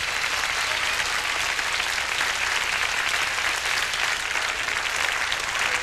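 Audience of children and adults applauding, a steady dense clapping.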